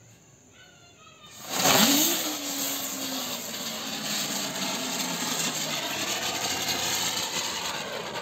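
Colour-changing butterfly firecracker going off: a faint fizz from the burning fuse, then about a second and a half in it ignites with a sudden loud whoosh and keeps up a steady rushing hiss as it spins and burns.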